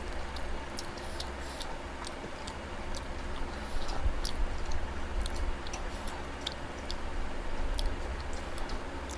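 Chewing and eating sounds: irregular small clicks and smacks of mouths and food, over a steady low background hum.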